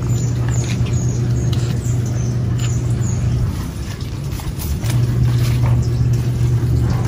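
A steady low motor hum that drops out for about a second and a half midway and then comes back, with short high falling chirps over it in the first few seconds.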